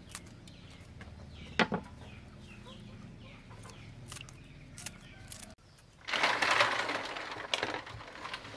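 Chickens clucking, loudest from about six seconds in. Before that, a few sharp snips of scissors clipping the tips off snail shells over a bowl of water.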